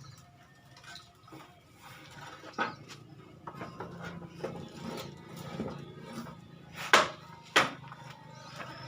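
Hand file working the teeth of a handsaw: a series of short metallic scraping strokes and clinks, with two sharper, louder strokes about seven seconds in.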